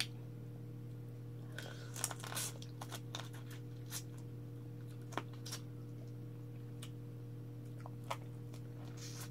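Cooked crab being eaten by hand: shell cracked and picked apart, with chewing and finger-sucking, heard as scattered crackles and clicks, busiest about two seconds in. A steady low hum runs underneath.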